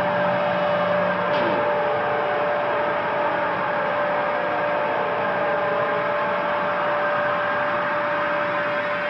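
Mobile cranes running during a lift: a steady machine hum with a constant high whine.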